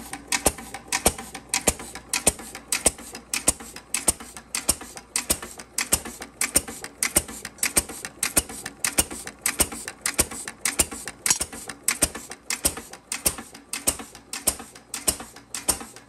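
2½ HP Worthington single-cylinder kerosene flywheel engine running on its throttle governor: a steady, even rhythm of sharp mechanical clicks and knocks, several a second. The even beat is an engine running just as it should.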